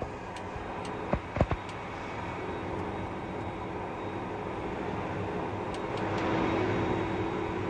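Case IH Quadtrac tractor running steadily under load while ploughing, with a few sharp knocks a little over a second in and a slight swell near the end.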